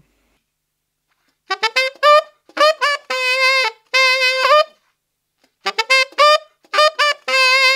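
Unaccompanied tenor saxophone playing a short bluesy lick in D major. A run of quick short notes leads into longer held notes that scoop up at their ends. The phrase starts about a second and a half in and is played a second time after a short pause.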